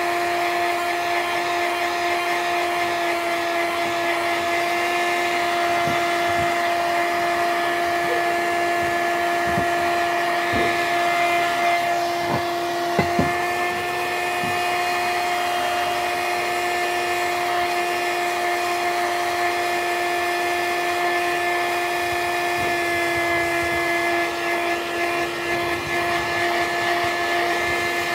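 Electric heat gun running steadily: a constant motor-and-fan hum with rushing air. A few short knocks come around the middle.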